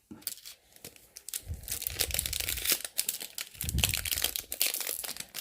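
Plastic wrapper of a Donruss trading-card pack crinkling as it is handled, in a dense crackly run starting about a second and a half in, with a few soft thumps of handling.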